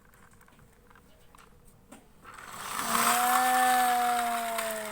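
A small motor whirring for about two and a half seconds, starting a little before halfway in: a steady hum with a hiss over it, its pitch sinking slightly.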